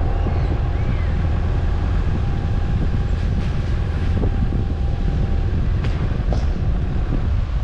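A 4WD's engine and tyres rumbling steadily as it drives slowly along a wet dirt and gravel track, with a few short ticks in the second half.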